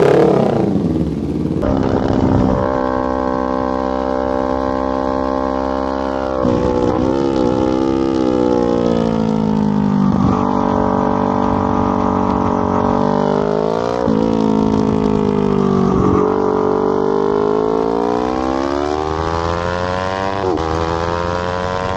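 Sport motorcycle engine running hard around a race track. The pitch rises and falls with the throttle, broken by a sudden drop every few seconds.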